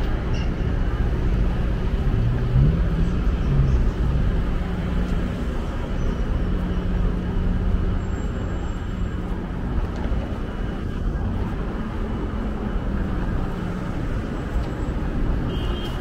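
Street traffic: engines running and tyres on the road. About three seconds in, one vehicle's engine rises in pitch as it speeds up.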